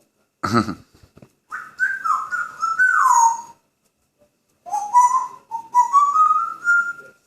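African grey parrot whistling: a short harsh noise, then a run of gliding whistled notes ending in a falling slide, and after a pause a series of short notes stepping upward in pitch.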